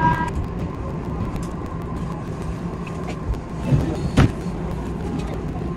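Steady rumble of an Odakyu 8000 series train heard from inside the driver's cab, with a sharp click about four seconds in.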